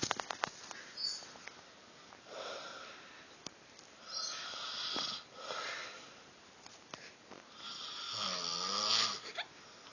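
An elderly man snoring in his sleep: a series of hissing, wheezy breaths a second or two apart, the loudest a pitched snore with a wavering tone near the end.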